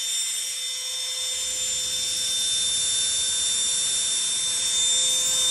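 3D-printed 30 mm micro electric ducted fan, a 7-blade impeller on an 8520 15,000 kV motor fed 3.5 volts, running flat out with a steady high-pitched whine over a hiss.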